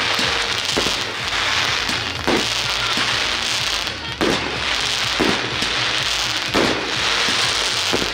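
Fireworks going off: a dense continuous crackle with about six sharper bangs spaced a second or two apart, with music underneath.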